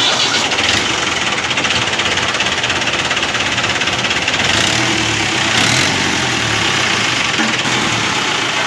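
New Holland 640 75 hp tractor's diesel engine running steadily at idle with an even, rapid clatter.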